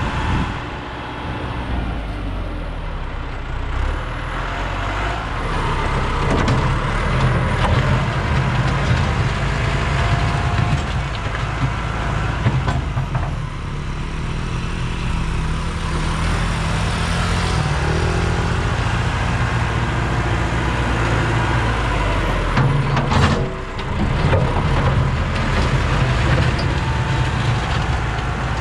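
Diesel tractor engine running steadily under load while pulling a mole plough that draws water pipe into the ground. Its note drops briefly a little over three-quarters of the way through.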